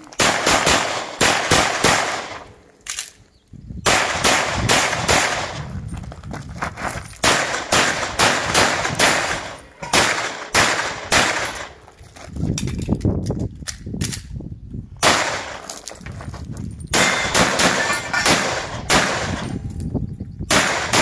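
Pistol fired in quick strings of shots with short pauses between strings, during a timed practical-shooting (IPSC-style) stage; each shot is sharp with a brief ring after it.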